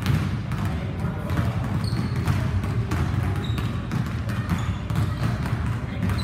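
Basketballs bouncing on a hardwood gym floor: irregular sharp thuds, several a second, over a steady low rumble.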